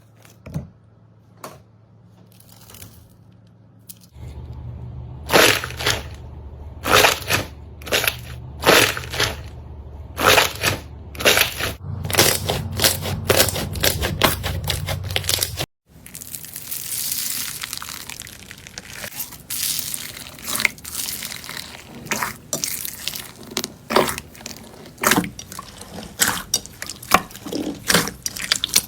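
Slime being pressed, poked and squished by hand, with a run of sharp sticky pops and crackles. It starts sparse and grows denser after about four seconds. The sound cuts out abruptly about halfway, then more slime crackling and popping follows with a hissier edge.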